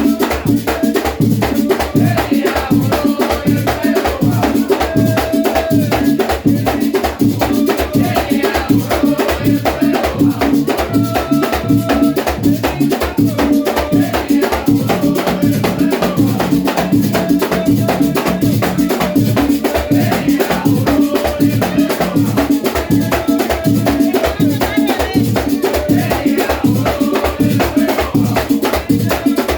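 Loud dance music with a fast, steady percussion beat and a rattling shaker.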